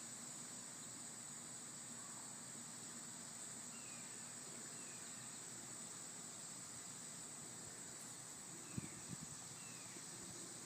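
Faint steady high-pitched insect drone, like crickets, with a few faint short falling chirps and a soft thump near the end.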